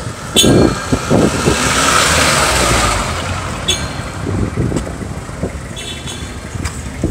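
Road traffic: a vehicle engine swells up and passes between about one and a half and three seconds in, over a steady low rumble, with a few short high squeaks.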